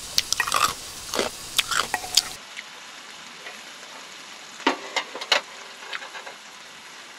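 Chopsticks clicking and scraping against a stainless steel bowl, sharp quick clinks; then a faint steady sizzle of beef steak pieces frying in a pan on a portable gas burner, with a few more utensil clinks about five seconds in.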